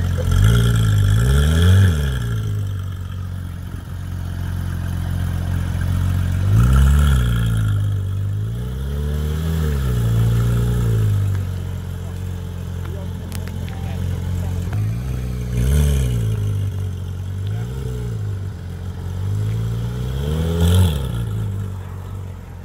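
Porsche 911 GT3 flat-six revved in a series of short throttle blips, each rising sharply and dropping back to idle. The blips come in three clusters: near the start, around a third of the way in, and in the last third.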